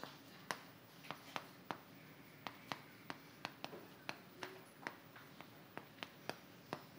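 A string of light, sharp clicks and taps at irregular intervals, about three a second, in a quiet room.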